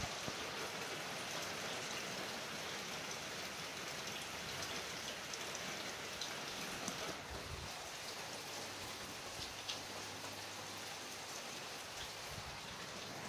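Steady rain falling: an even hiss, with now and then a louder single drop.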